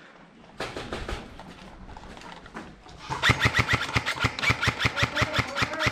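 Airsoft M4 rifle firing a rapid run of shots, about eight a second, starting about three seconds in.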